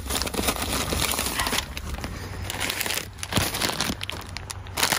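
Plastic bags and snack wrappers crinkling and rustling as they are handled and stuffed, with many small crackles.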